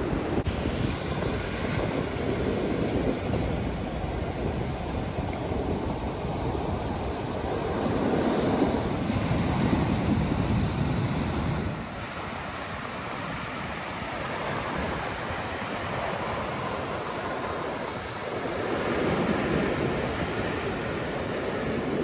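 Ocean surf breaking and washing up a beach, a steady rush that swells and ebbs with the waves, stepping down suddenly about twelve seconds in.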